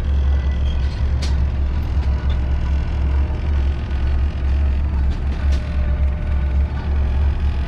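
A vehicle engine running steadily with a heavy low rumble, with a couple of sharp clicks, one about a second in and one past the middle.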